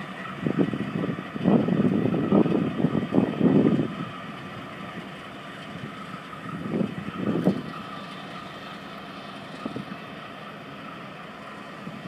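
Wind buffeting the microphone in irregular gusts, strongest in the first few seconds and again briefly about halfway, over a steady faint mechanical hum.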